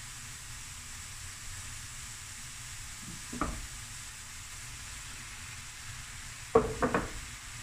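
Vegetables sizzling steadily in a stainless steel frying pan as chicken pieces are laid in with a fork. There is one knock about three and a half seconds in and a short clatter of several knocks near the end, from the fork and chicken against the pan.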